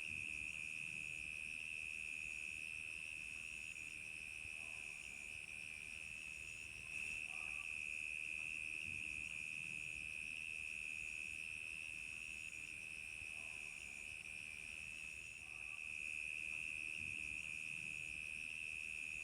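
Crickets chirping in a continuous chorus, one steady high trill throughout. A second, higher insect call pulses over it about once a second.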